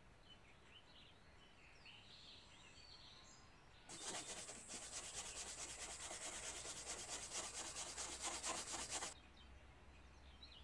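A wire brush scrubbing fast back and forth over a torch-charred wooden tabletop, scouring off the burnt surface; it starts about four seconds in and stops abruptly about five seconds later. Birds chirp faintly before and after.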